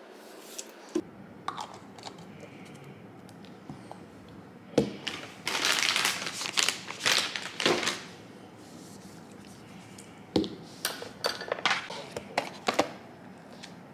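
Plastic bottle and packaging handled on a table: scattered clicks and taps, a sharp knock about five seconds in, then a couple of seconds of crinkling and rustling. A second run of clicks and taps comes near the end as a cardboard nail colour chart box is handled.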